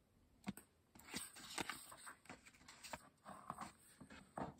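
Faint paper rustling and small clicks as a page of a paperback picture book is turned and the book is handled, with the loudest rustle near the end.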